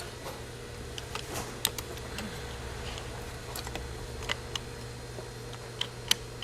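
Light, irregular metallic clicks and taps as a sewing machine needle plate is set down and positioned over the feed dog, over a steady low hum.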